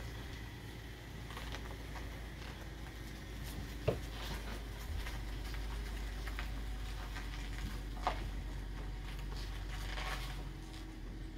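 Car engine running at low speed as the car turns, a steady low rumble. A sharp click about four seconds in and another about eight seconds in, with small rustles near the microphone.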